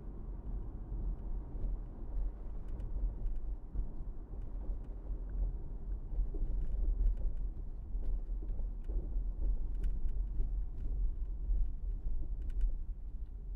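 Steady low rumble of a car driving, mostly road and wind noise, with a few faint ticks.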